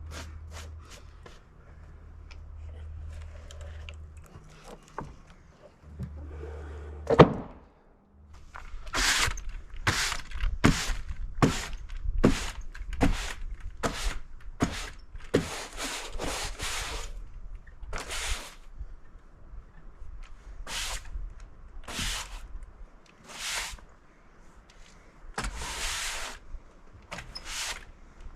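A low hum and then one heavy wooden thunk about seven seconds in, followed by a long run of short, quick sweeping strokes. The strokes are a brush clearing sawdust off a freshly cut elm slab.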